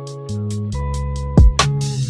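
Background music with a steady beat: a bass line, sustained notes and quick, even high ticks, with a heavy drum hit about one and a half seconds in.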